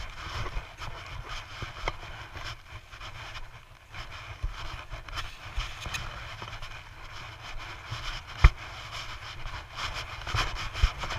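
Handling noise from a GoPro worn by a small child moving over snow: a rumbling, rubbing noise on the camera's microphone with scattered knocks, the sharpest about eight and a half seconds in.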